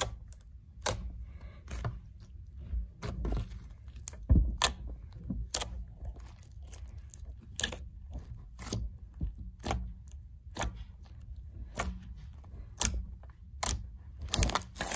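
Pink bead-studded slime being squeezed and poked by fingers, making sharp clicks at irregular intervals, about one a second: very satisfying and clicky. A low rumble of handling runs underneath.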